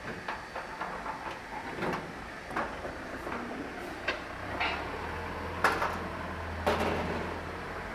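Clicks and knocks of the front panel door of a screw air compressor's metal cabinet being unlatched and swung open, with two sharper knocks near the end. A low steady hum comes in about halfway through.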